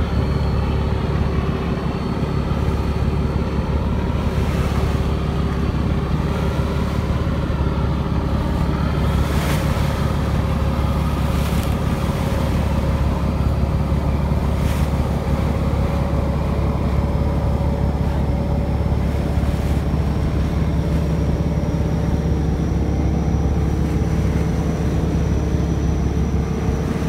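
Fishing boat engine running steadily at speed under way, a deep even drone, with water rushing past the hull and wind on the microphone.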